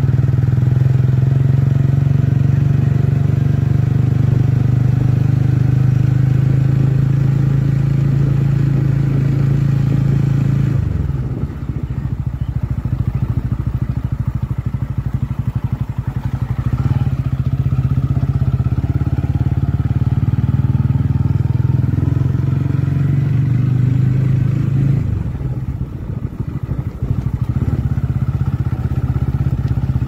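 TVS Ronin 225's single-cylinder engine running at a steady riding pace, heard from on the bike. The engine note shifts and dips in level about a third of the way in and again near the end.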